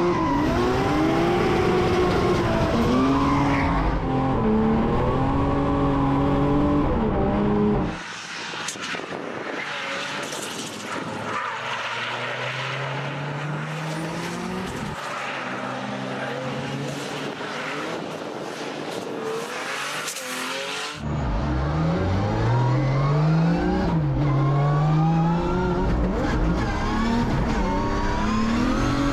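Drift cars sliding at full throttle: engines revving hard, climbing and dropping in pitch, with tyre screech. About eight seconds in the sound turns quieter and thinner for some thirteen seconds, with the screech more to the fore, then loud close-up revving returns.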